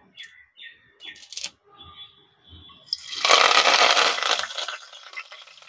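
Curry leaves dropped into hot sesame oil, sputtering and crackling loudly about three seconds in, then dying down over the next two seconds.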